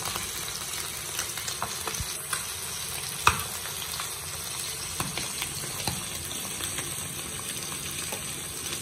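Fish steaks shallow-frying in hot oil in a pan: a steady sizzle with scattered crackles and pops, one louder pop about three seconds in.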